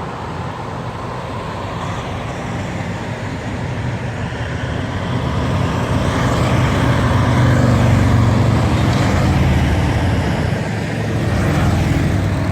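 Diesel tractor-trailer hauler driving past. Its engine grows louder to a peak about eight seconds in, then eases off a little.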